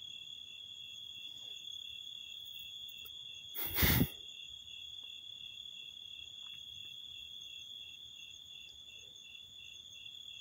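Insects, crickets or the like, trilling in a steady, high-pitched, finely pulsing chorus. A brief loud rustle-like burst about four seconds in.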